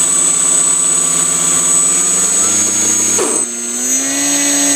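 Twin Exceed RC Alpha 300 electric motors spinning propellers on an RC plane at steady throttle, a loud whine with a thin high electronic tone over it. About three seconds in, part of the sound drops out and the remaining tone climbs in pitch.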